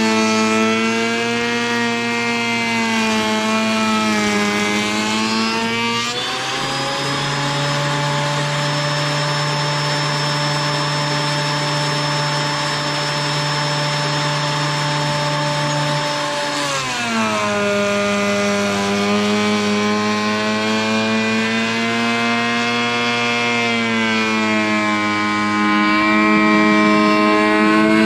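A thickness planer planing a wooden slab. The motor's whine sits lower while the board is feeding through. About six seconds in it rises and holds steady for about ten seconds with the machine running empty, then drops again as the board goes back in for another pass.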